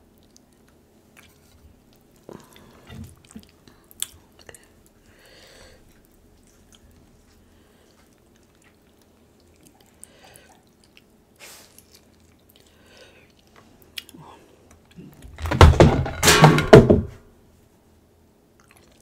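Quiet handling of king crab meat, with a lemon squeezed over it and scattered small clicks and drips. About fifteen seconds in comes a sudden loud burst lasting about two seconds, the loudest sound here.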